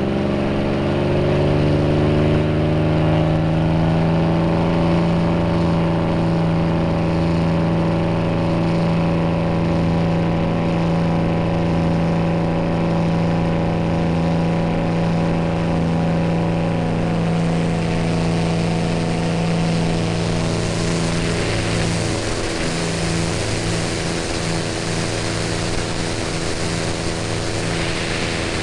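Propeller airplane's engine during the takeoff roll, its pitch climbing over the first few seconds as it comes up to full power and then holding a steady drone. From a little past halfway a rushing wind noise grows as the plane lifts off and climbs.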